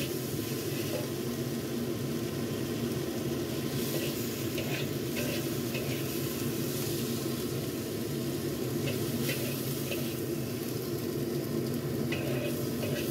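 Bitter melon strips sizzling in a hot wok as a spatula stirs them, with short scrapes of the spatula against the wok now and then over a steady low hum.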